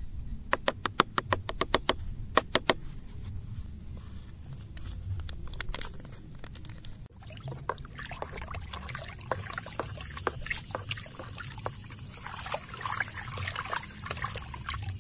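A quick run of sharp clicks in the first few seconds, a metal spoon tapping on a metal bucket, then a wooden stick stirring water in the bucket, sloshing and splashing from about halfway in as fungicide powder is mixed into spray solution.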